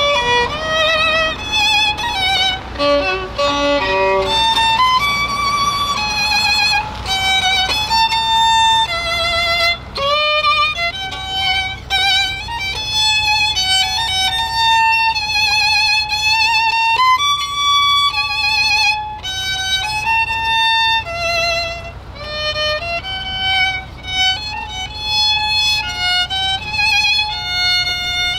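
Solo violin playing a melody of bowed notes with vibrato: quicker notes in the first few seconds, then mostly longer held notes. A steady low rumble runs underneath.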